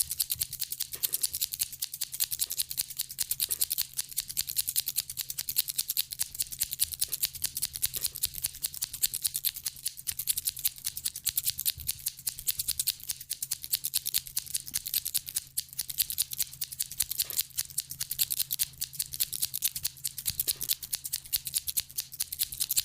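A close-up ASMR trigger: a dense, unbroken run of fast, crisp, high clicking and snipping-like ticks, over a faint steady low hum.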